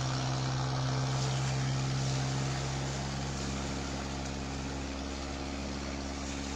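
Engine of a motorised outrigger boat running steadily with an even drone, growing a little quieter about two and a half seconds in.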